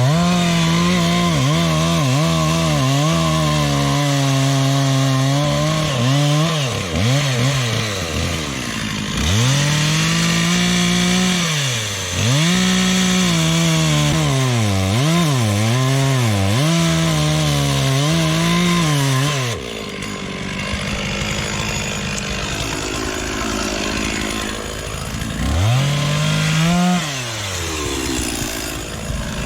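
Two-stroke chainsaw cutting wood, its engine revving up and down repeatedly as it bites into the cut. About two-thirds of the way through the engine note drops away, then revs rise again near the end.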